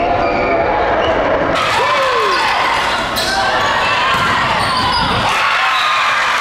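Live volleyball rally in a gym: sneakers squeaking on the hardwood floor in short rising-and-falling chirps, with players' voices and a sharp hit of the ball about three seconds in.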